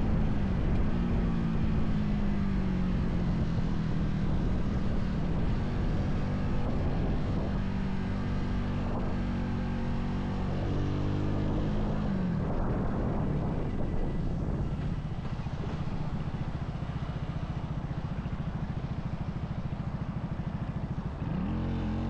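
Vitacci XMT 250 motorcycle engine running as the bike decelerates from highway speed, its note dropping in steps, with a brief rising-and-falling rev near the end.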